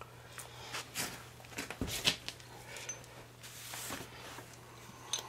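Faint scattered clicks and light knocks of metal parts and tools being handled, the loudest about two seconds in, over a steady low hum.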